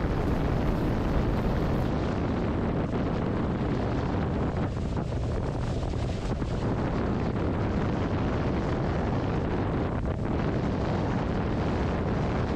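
Steady wind buffeting the microphone over the rush of water off the hulls of a Hobie 16 catamaran sailing fast, at about 16 to 19 knots.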